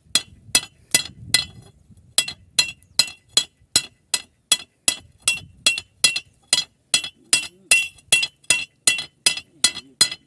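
Hand hammer beating the end of a steel quarry chisel on an anvil to sharpen its point: a steady run of ringing metal clinks, about two to three a second, with a short pause about a second and a half in.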